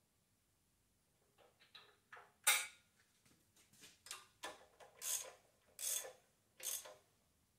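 Socket wrench ratcheting in a series of short strokes as a spark plug is tightened down, the loudest stroke about two and a half seconds in.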